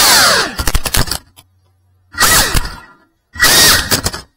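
FPV quadcopter's brushless motors and propellers whining, the pitch falling and breaking up into a stutter. The sound cuts out completely twice between two short surges, as the drone tumbles through a flip.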